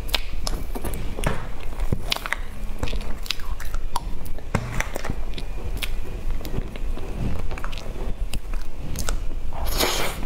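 Close-miked mouth sounds of eating soft cream layer cake: wet chewing and lip smacks with many short, sharp clicks, and a louder hissing burst near the end as a big forkful goes in.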